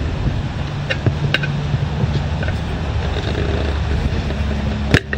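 A motor running with a steady low hum, with a few sharp clicks about a second in and a sharper knock near the end.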